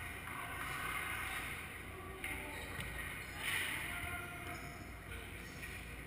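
Echoing ambience of a large hall: a steady low rumble, with distant, indistinct voices rising briefly twice, a couple of seconds in and again a second later.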